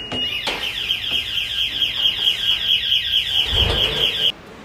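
Intelligent forklift anti-collision safety bar sounding its alarm: a loud, high-pitched electronic tone pulsing rapidly, about six or seven pulses a second, that cuts off suddenly near the end. It warns that the forklift's mast or load is raised too high to clear the doorway. A low thump comes shortly before the alarm stops.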